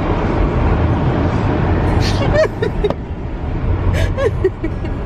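Steady road and engine rumble inside a moving car's cabin. A woman's laughter breaks in about two seconds in and again about four seconds in.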